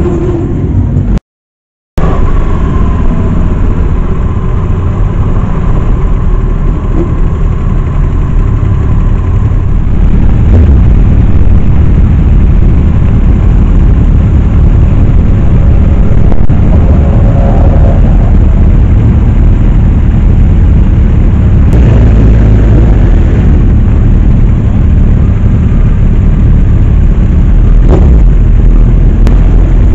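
Motorcycles riding in street traffic, heard from a camera on a moving bike: a steady, loud low rumble of engines mixed with wind buffeting the microphone. The sound cuts out completely for under a second about a second in.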